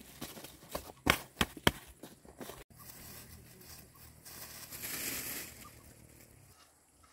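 Hands pressing and patting loose soil in a woven plastic sack: crackling rustles with a few sharp taps a little over a second in. After an abrupt cut, a softer rustling swells and fades a few seconds later.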